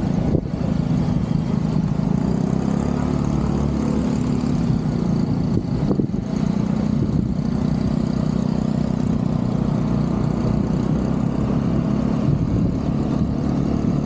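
Small motor scooter's engine running steadily, heard from the seat.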